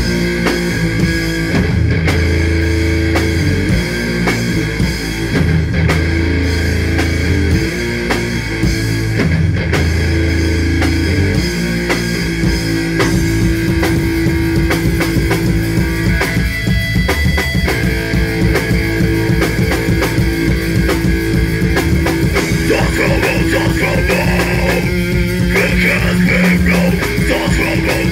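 A rock band playing live on electric guitar, bass guitar and drum kit, recorded through a phone's microphone. Slow heavy chords broken by short stops for about the first twelve seconds, then a fast, driving beat.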